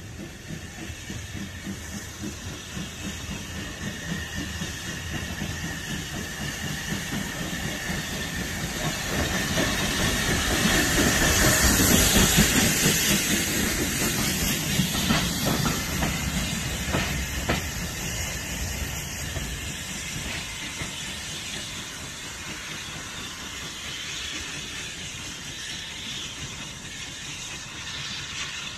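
A steam locomotive hauling goods wagons passes close by. Its exhaust beats grow louder as it approaches and peak about twelve seconds in as it goes past with a hiss of steam. The wagon wheels then clatter over rail joints, and the sound fades as the train pulls away.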